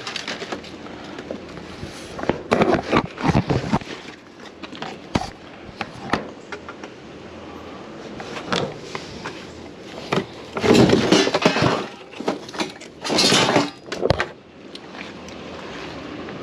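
Scrap being handled and loaded: a run of clattering knocks and bangs, with the loudest crashes about ten and thirteen seconds in.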